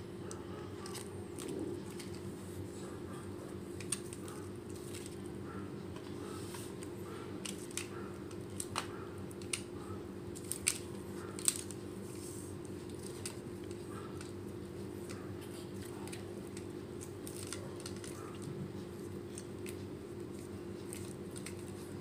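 Hands handling a plastic chocolate-bar wrapper and a toy drone's plastic frame: scattered small clicks and crinkles, busiest in the middle, over a steady low hum.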